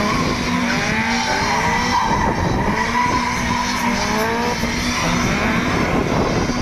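Two drift cars circling close together at full lock, their engines revving up and down over and over while the tyres squeal and skid.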